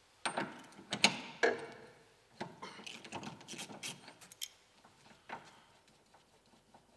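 A hand tool clicks and scrapes on the dust cover of a Routemaster's hydraulic brake accumulator as the cover is worked off. There are a few sharp clicks in the first second and a half, then a run of lighter ticks and one last click after about five seconds.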